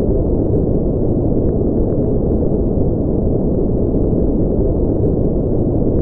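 Spaceship-interior white-noise ambience: a steady, deep rumbling noise that never changes, with the sound all low and dull and no high hiss.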